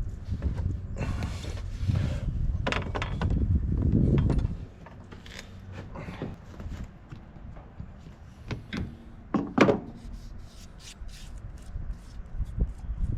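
Handling noise from work on a compact tractor's battery: a sustained low rumbling clatter for the first four seconds or so, then scattered clicks and knocks, with one sharp knock near ten seconds in.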